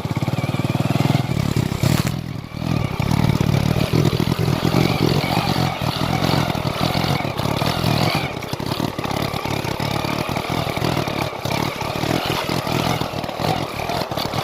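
Motorcycle engine running steadily, with a short dip in loudness about two seconds in.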